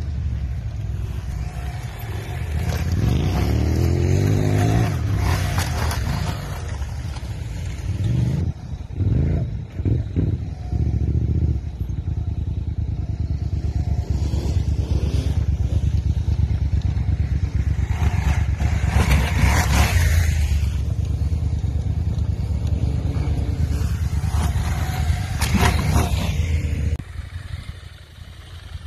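Adventure motorcycle's engine revving and running hard off-road, its pitch rising and falling with repeated throttle blips and a few choppy on-off bursts. The engine sound drops away sharply near the end.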